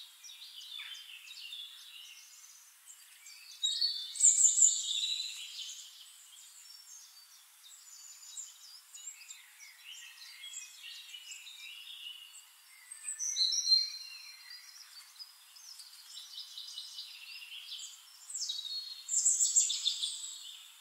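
Several songbirds singing and chirping at once, overlapping trills and whistles. Louder phrases come about four seconds in, around thirteen seconds, and near the end.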